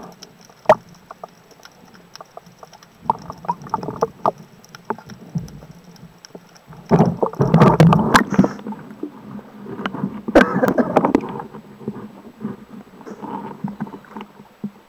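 Water splashing and sloshing at the surface as a spearfisher handles his speargun and a speared gilthead bream, with scattered knocks and clicks of gear. Two louder bouts of splashing come about seven and ten seconds in.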